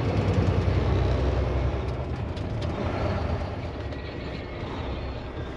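Loaded grain truck driving, its engine giving a steady low drone over road noise, gradually growing quieter.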